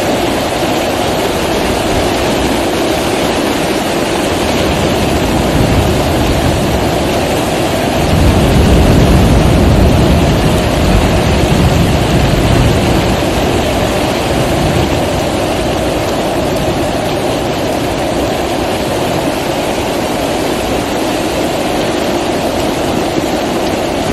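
Heavy rain pouring down and floodwater rushing through a street: a loud, steady hiss. A deeper rumble swells about eight seconds in and eases off a few seconds later.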